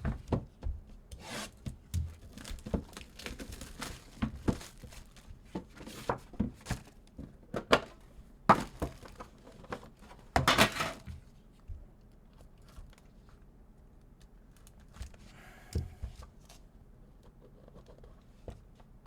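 Card packaging being torn open and cards handled: a run of rustles and clicks, with sharp tearing about eight and ten seconds in, then quieter, fainter rustling.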